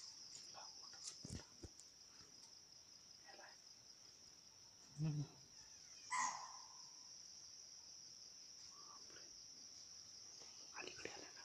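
Insects trilling steadily on one high thin note, with a brief low thud about five seconds in and a short sharp sound just after six seconds.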